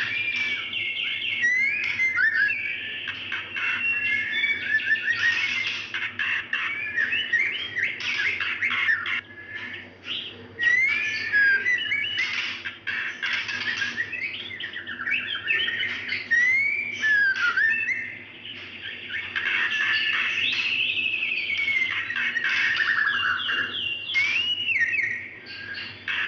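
Female white-rumped shama calling a male: a nearly unbroken run of short chirps and whistled notes that swoop up and down, with a couple of brief pauses. It is the call of a female in breeding condition, used to stir a male to sing.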